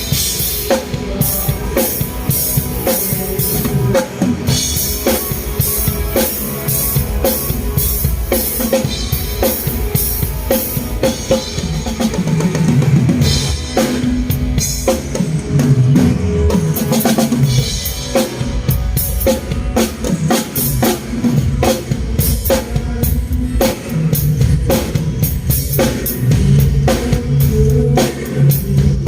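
Drum kit played in a steady groove, with kick drum, snare and cymbals struck in a quick, regular rhythm, over music with a low bass line.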